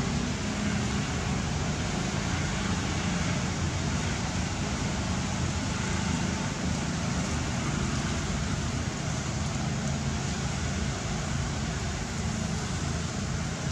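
Wind buffeting the microphone outdoors: a steady rushing noise with an unsteady low rumble, and no distinct animal calls or knocks standing out.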